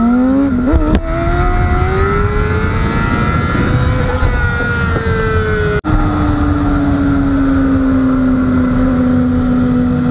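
Honda CBR600RR's inline-four engine running, its pitch rising for about four seconds and then easing off. After a sudden break about six seconds in, it holds a steadier, lower note that sinks slowly.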